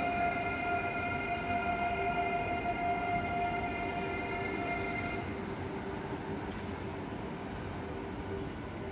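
Electric train's steady whine of several high tones over a low rumble; the high tones cut off about five seconds in, leaving a lower hum and the rumble.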